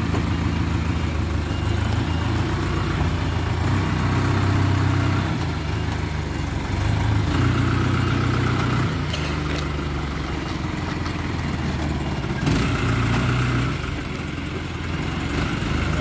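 Crane truck's engine running at low revs throughout, its note wavering slightly as the truck is manoeuvred slowly into a tight space.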